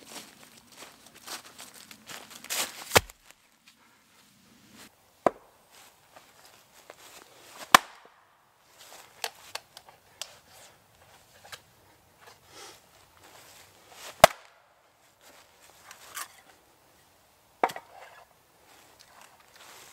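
Footsteps through fallen leaves for the first few seconds, then a hatchet splitting firewood on a chopping block: five sharp, irregularly spaced strikes, with fainter knocks of wood between them.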